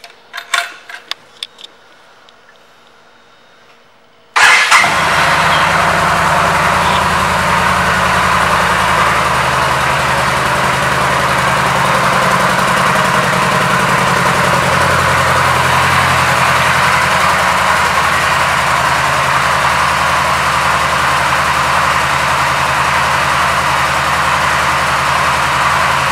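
A few sharp clicks, then about four seconds in the 2012 Yamaha V Star 1300's V-twin engine starts suddenly and idles steadily.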